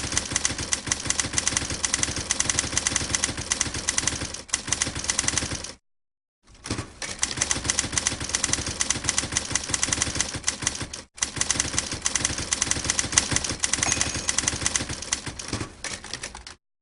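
Rapid typing on a typewriter: a dense, continuous stream of key strikes clattering. It breaks off abruptly twice, once for about half a second near the middle and again near the end.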